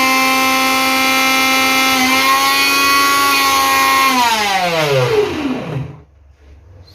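900-watt mixer grinder running unloaded with an empty chutney jar fitted: a steady high motor whine, a bit heavy, whose pitch shifts slightly about two seconds in. About four seconds in it is switched off and winds down in a falling whine, stopping near the end.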